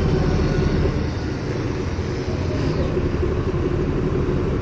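A boat's diesel engine running steadily: a constant low rumble.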